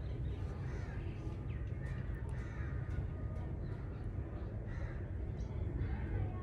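Birds calling outdoors, a scatter of short calls over a steady low rumble.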